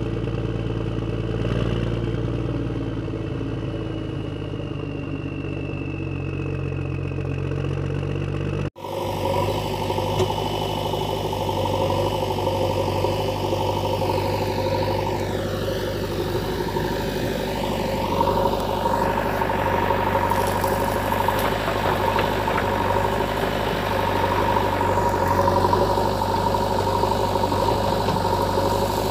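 A steady engine-like running sound, which cuts off abruptly about nine seconds in and gives way to a different steady engine-like sound.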